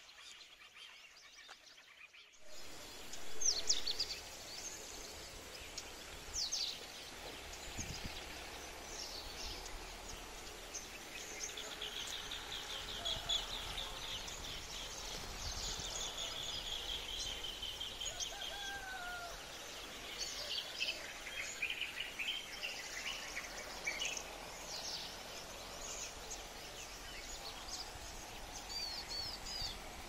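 Wild birds calling in the early morning: many short chirps, rapid trills and a few slurred whistles from several birds, starting about two seconds in over faint low background noise.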